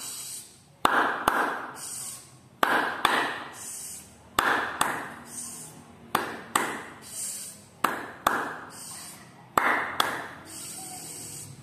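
Hand clapping in a steady rhythm: pairs of claps about half a second apart, a new pair every second and three-quarters or so, six pairs in all, each clap ringing briefly in the room.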